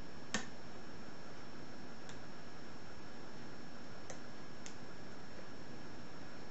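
Pin tumbler lock being single pin picked: about four faint sharp clicks of a half-diamond pick on the pins and the pins setting, the first and strongest about a third of a second in, over a steady background hiss.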